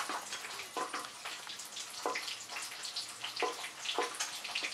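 A spatula scraping dry-roasted cumin seeds and whole spices off a tawa into a steel blender jar: about five short scrapes and knocks, with the seeds pattering into the jar over a steady hiss.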